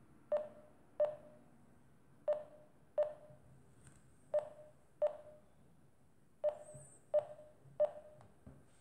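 Acoustic variometer app on a Samsung smartphone beeping through the phone's speaker: short beeps of one pitch that die away quickly, mostly in pairs with pauses between, and three in a row near the end.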